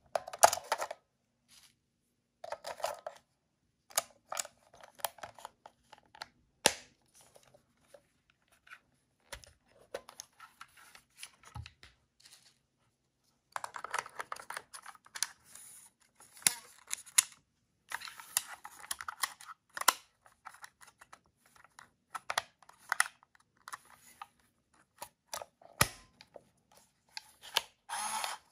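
Olympus Trip AF 30 DX compact film camera being handled: sharp plastic clicks and scraping as its battery door and film back are worked and a 35 mm film cartridge is fitted. The sounds come in short bursts with quiet gaps, with a loud click near the start and another near the end.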